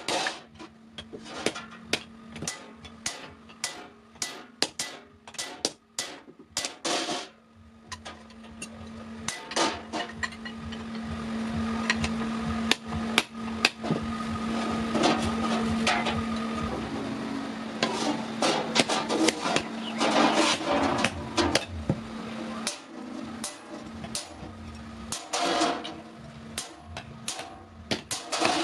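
Blacksmith's hammer striking steel on an anvil in a quick series of ringing blows, about two a second. Partway through, a steady machine hum and hiss swell up under the strikes and fade again, before the spaced hammer blows return near the end.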